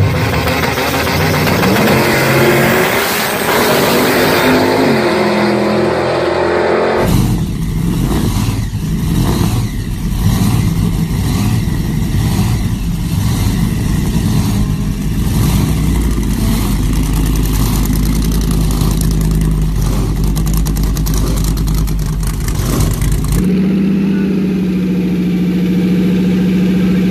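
Engines of three engine-swapped small cars in turn. First a turbocharged drag car accelerates hard, its pitch rising, for about seven seconds. Then a supercharged Lexus 1UZ-FE 4.0 L V8 in a Fiat 126 runs with an uneven, pulsing note. About 23 seconds in, a supercharged V8 settles into a steady idle.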